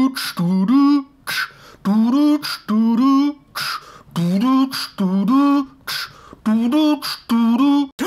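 A man's voice making a rhythmic beatbox-style tune with his mouth: short hummed notes that slide up in pitch, alternating with hissing cymbal-like 'ts' sounds in a steady repeating pattern.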